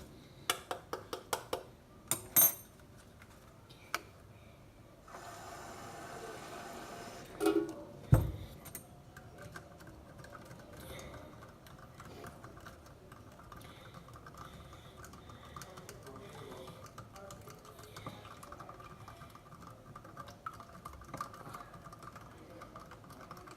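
Borax being dissolved by hand: a container and spoon are set down with clicks and knocks, water is poured in for a couple of seconds about five seconds in, and something knocks down hard. After that, a spoon scrapes and stirs steadily in the container.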